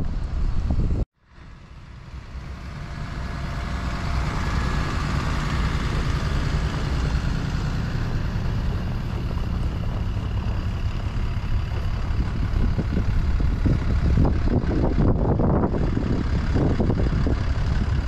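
City transit bus engine idling close by: a steady low rumble. The sound cuts out abruptly about a second in and fades back up over the next few seconds.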